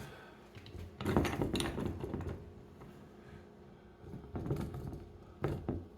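Metal clicking and rattling of a golf club being worked in the clamp of a loft and lie bending machine, in two spells, about a second in and again near the end.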